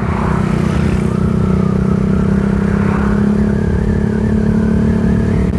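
Suzuki Satria FU FI's single-cylinder four-stroke engine running at a steady cruising speed, with wind rushing on the microphone.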